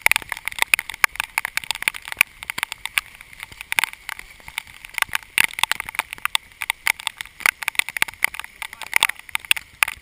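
Heavy rain, with raindrops striking the camera housing as a dense, irregular patter of sharp taps over a steady hiss.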